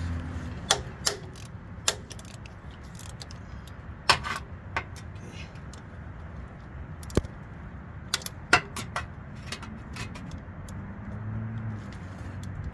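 Ratchet wrench on a 12 mm socket loosening an AC compressor mounting bolt: irregular sharp metal clicks and clinks of the ratchet and socket, in small clusters about a second in, near four seconds and near eight and a half seconds, over a low steady hum.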